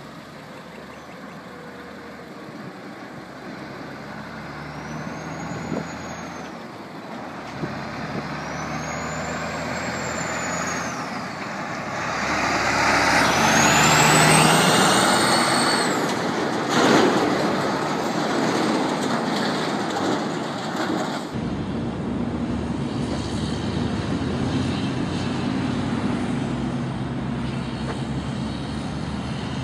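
A Kenworth road train with a Caterpillar diesel drives close past. Its engine and tyre noise build to their loudest about halfway through, with high whistling whines that rise and fall three times and a sharp hiss or bang a little after the peak. After a cut, another road train's running noise continues steadily.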